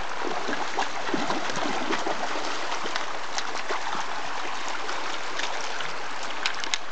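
Shallow creek running over a stony bed, a steady rush of water. Splashes and a few sharp clicks from a dog wading and pawing at the stones cut through it, with the clicks bunched near the end.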